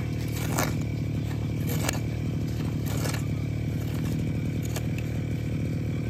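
Short scrapes of a small hand hoe (homi) digging and raking dry, stony soil around a sweet potato, four or five strokes. Under them runs the steady drone of an engine.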